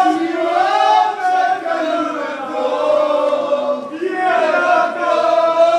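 A group of men singing and chanting together loudly, several voices on one tune with long drawn-out notes.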